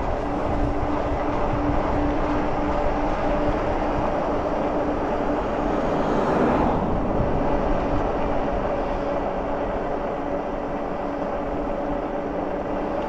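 An Engwe Engine Pro e-bike coasting downhill at about 16 mph: a steady rush of wind and tyre noise with a steady hum running under it, while its regenerative braking recharges the battery. An oncoming car passes about six seconds in, briefly swelling the noise.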